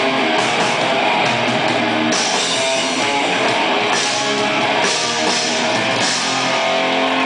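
Live rock band playing loud, heard from the audience: electric guitar with bass guitar and drum kit.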